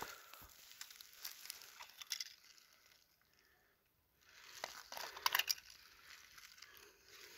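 Faint clicks and small crunches of the broken plastic and glass parts of car-crushed binoculars being picked up and handled on asphalt, with a brief silent gap in the middle and a cluster of sharper clicks about five seconds in.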